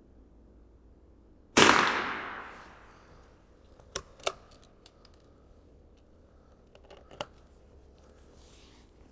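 A single .22 LR rifle shot, a sharp crack with an echo that dies away over about a second. A few smaller sharp clicks follow about two and a half seconds later and again near the end.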